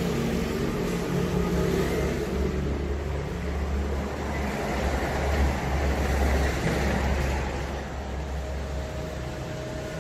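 Low vehicle engine rumble that swells about halfway through and fades near the end.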